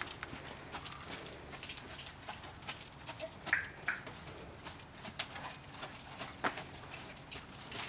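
A horse trotting under saddle on arena sand: a run of short, irregular hoofbeat clicks and knocks. Two brief higher-pitched sounds come a little past halfway.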